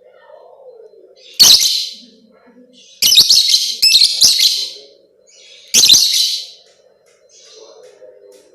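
Lovebird giving loud, shrill chattering calls in four bursts, the middle two running close together, over a faint steady low hum.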